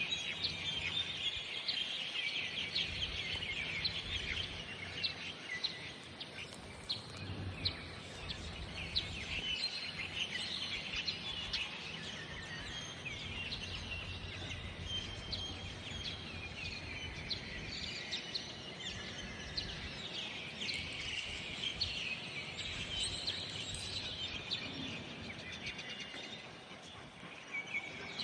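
A dense chorus of many small birds chirping and calling without pause, sounding amplified, over a low steady background rumble.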